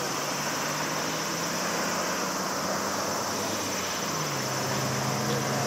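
An Airbus A380-861's four Engine Alliance GP7270 turbofans at takeoff thrust during the takeoff roll: a steady distant jet roar with a high hiss above it. A low tone in the roar steps down in pitch about four seconds in.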